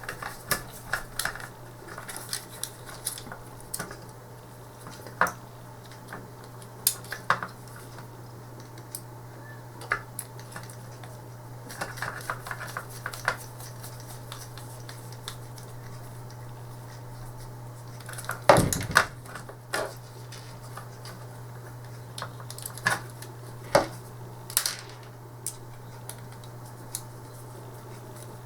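Scattered small clicks and light clatter of plastic joystick parts and a screwdriver being handled during reassembly, with a louder clatter about two-thirds of the way through, over a steady low hum.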